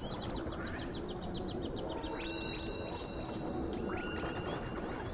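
Sound-art soundscape: quick, high chirps repeating several times a second, with a few held, stepped tones in the second half, over a steady low rumble.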